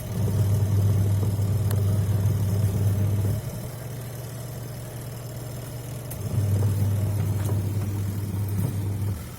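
Electric motor of a twin-tub washing machine running with a strong low hum, in two runs of about three seconds with a quieter pause of about three seconds between them.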